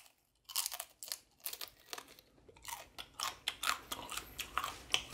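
Crunching and chewing of a butter air-fried crab leg bitten whole, shell and all: irregular sharp crunches that come faster in the second half.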